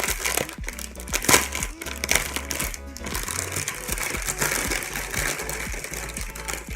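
Background music, with handling noises over it: sharp rustles and clicks, most in the first few seconds, as a pack of makeup brushes is opened.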